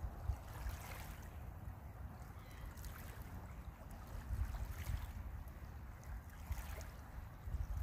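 Wind buffeting the microphone, with small river waves lapping on a stony shore and swelling about every two seconds.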